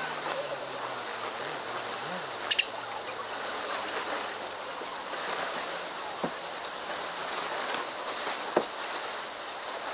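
Steady outdoor hiss of campsite ambience, with a few sharp clicks and knocks, the loudest about two and a half seconds in.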